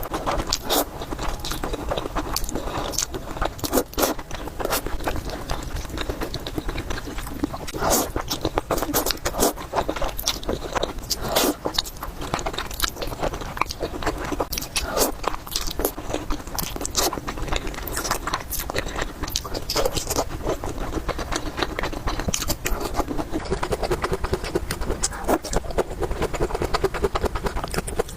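Close-miked mukbang eating sounds: a person chewing and biting into spicy noodles and dumplings, with many short, wet mouth clicks all through.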